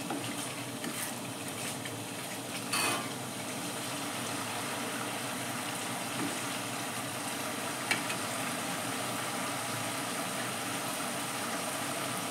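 Masala of oil, ground spices and ginger-garlic paste bubbling and sizzling steadily in a kadai over a gas flame as it fries. A ladle knocks against the pan twice, about three seconds in and near eight seconds.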